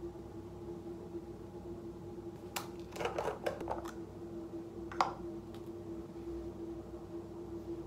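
Plastic screw lid of a cleansing balm jar being twisted off: a short cluster of clicks and scrapes, then a single sharp tap about five seconds in as the lid is set down on the counter. A steady low hum runs underneath.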